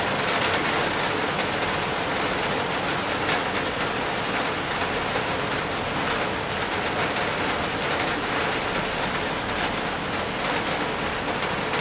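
Heavy rain pouring onto rock and foliage: a dense, steady hiss of falling water.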